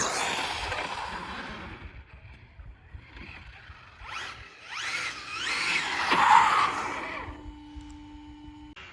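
High-pitched whine of a brushless RC rally car's Velineon motor on speed passes. It dies away over the first two seconds, then climbs and sweeps in pitch again from about four seconds in, loudest just past six seconds, before fading.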